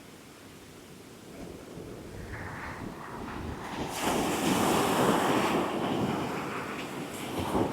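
Caribbean surf breaking and washing in under strong wind, with wind buffeting the microphone. The rush swells to its loudest about four seconds in, eases off, and rises briefly again near the end.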